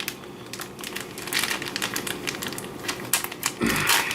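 Plastic packaging crinkling and rustling as it is handled, a run of irregular crackles and clicks, with a dull bump near the end.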